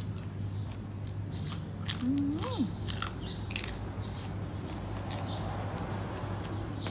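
Close-up crunching and chewing of raw water-spinach (morning glory) stalks, a run of crisp snaps and crackles, with a short hummed 'mm' about two seconds in.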